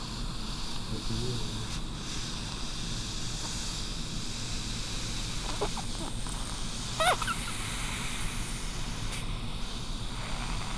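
Baby hiccuping: one short, sharp, high-pitched hic about two-thirds of the way through, with a fainter one just before it, over a steady low background hum.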